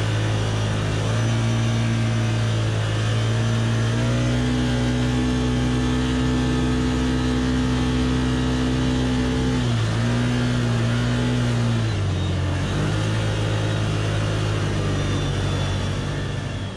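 Can-Am Commander side-by-side's V-twin engine running while driving along a sandy beach, its note stepping up a little in the first few seconds and dropping back about ten and twelve seconds in with the throttle.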